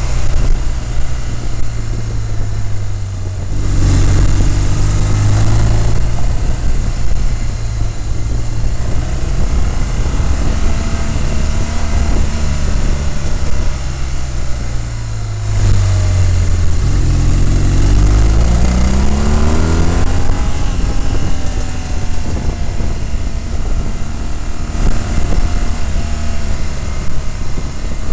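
A motor vehicle's engine running under load on a climbing road, its pitch rising as it accelerates a few seconds in and again about two-thirds of the way through, then dropping back. A steady rushing noise runs underneath.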